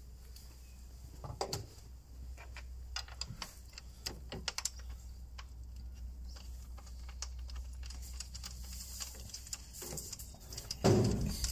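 Scattered small clicks and taps from hands handling wiring and metal fittings at a car's strut tower during a strut brace install, over a low steady hum, with one louder knock near the end.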